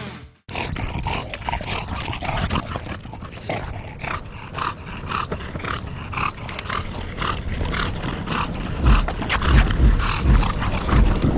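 A dog vocalising in a long run of short, repeated sounds, a few a second, with heavy low bumps on the microphone near the end.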